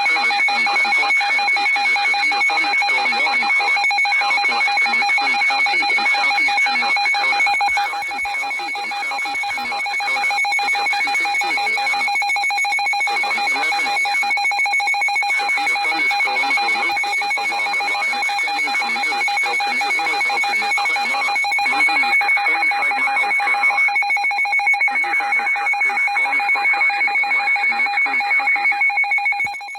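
Weather radio receiver's electronic alert alarm sounding without a break as a rapidly pulsing beep, signalling an emergency warning broadcast.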